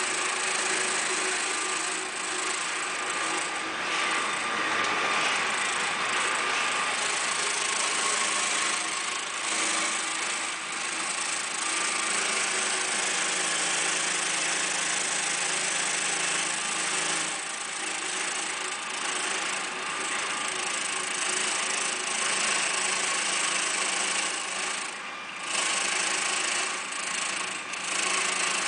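Contec CT250 concrete grinder/planer running: a steady machine noise with a dense grinding hiss and a few steady tones, dipping briefly about 25 seconds in.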